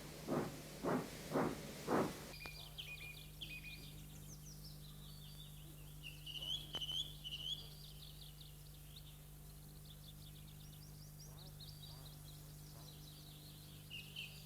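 Steam locomotive exhaust chuffing about twice a second, which stops about two seconds in. Birds then chirp and sing over a faint steady hum.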